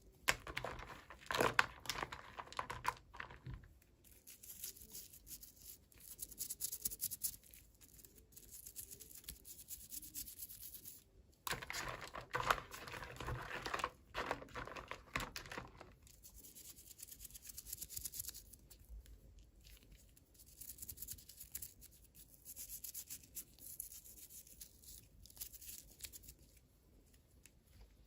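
Toy packaging being torn open and crinkled by hand, in irregular bursts of rustling. There are louder spells near the start and about halfway through, with quieter handling in between.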